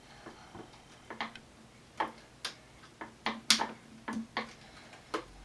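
About a dozen irregular, sharp clicks and light taps from a thin plastic water bottle and a rubber balloon being handled, as the balloon's neck is stretched over the bottle's mouth.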